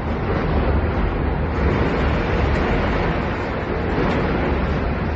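Steady loud rushing noise with a deep rumble, from the container ship's churning propeller wash and wind on the microphone, as the ship pushes into a quay crane; no single crash stands out.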